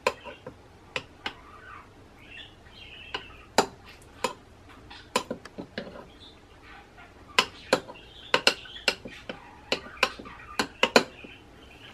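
Metal spoon clicking and scraping against a glass dish while stirring and scooping a soft spread: irregular sharp clicks, coming thickest in a cluster about two-thirds of the way through.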